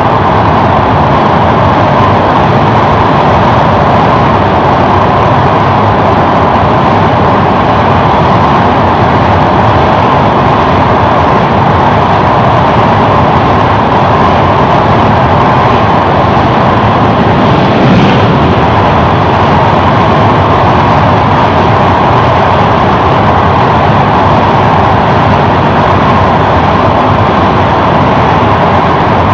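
Passenger train running at speed across the Padma Bridge's rail deck, heard from an open coach window: a loud, steady rush of wheel-on-rail noise and moving air, with one brief knock partway through.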